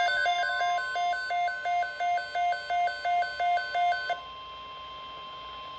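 Weather alert radio alarm beeping, alternating between two pitches about twice a second, over the steady NOAA Weather Radio 1050 Hz alert tone. The beeping stops about four seconds in, leaving the steady tone, which is the signal that a watch or warning message follows.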